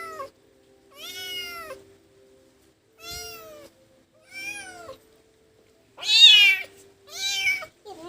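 A domestic cat meowing over and over, about one drawn-out meow every second or so, each rising then falling in pitch; the loudest comes about six seconds in.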